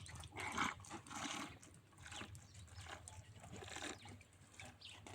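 A camel drinking water: a run of slurping gulps, roughly one every second.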